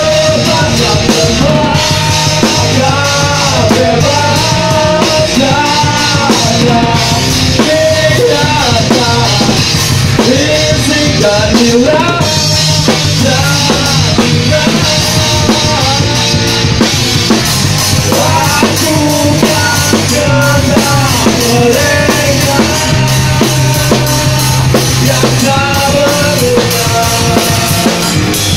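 A live punk-rock band playing loud and steady: a drum kit, heard close up, drives dense cymbal and drum hits under guitars and bass, with a singer's voice on top.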